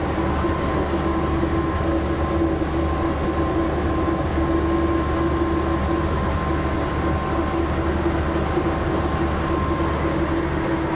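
Tour bus engine and drivetrain running with a steady drone, heard from inside the passenger cabin while driving.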